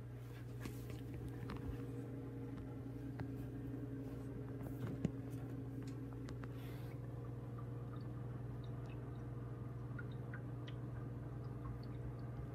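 Steady hum of a reef aquarium's pumps and water circulation, with scattered small clicks and one sharper click about five seconds in.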